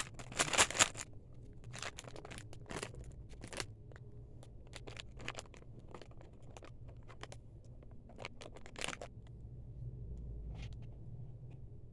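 Crisp crackling and crunching close to the microphone while orange cream M&M's are being eaten, loudest in the first second, then scattered sharp crackles.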